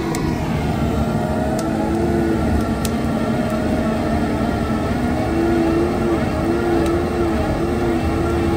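Skid-steer loader running steadily under load with a hydraulic grinding attachment, its whine wavering and dipping in pitch over a constant rumble, with a few sharp ticks.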